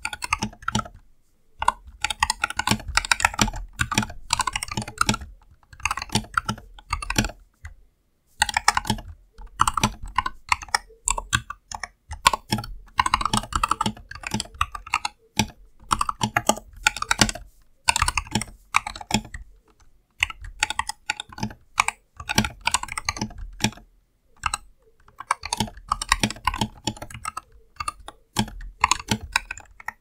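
Typing on a Lofree 1% transparent 68-key mechanical keyboard: fast runs of keystroke clacks broken by short pauses every few seconds.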